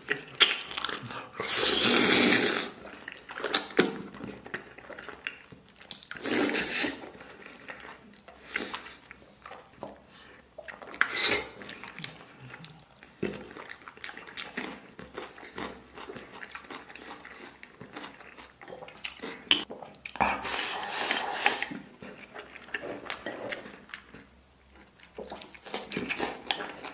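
Close-up eating sounds: sucking and chewing on the soft, gelatinous skin of a braised pig's trotter, in irregular wet bursts, the loudest about 2 seconds in and again about 20 seconds in. Near the end chopsticks click against a ceramic rice bowl as rice is eaten.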